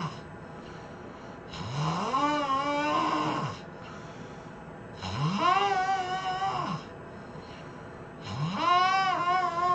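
A man snoring loudly in long, drawn-out snores, three in a row about three seconds apart. Each snore has a clear pitch that rises at the start, holds, and drops at the end.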